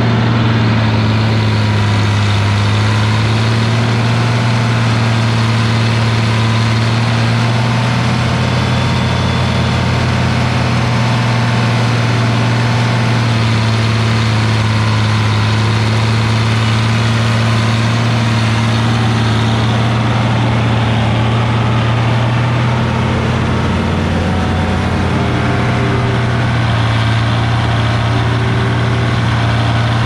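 Farm machinery engine running steadily at constant speed with a deep, even hum.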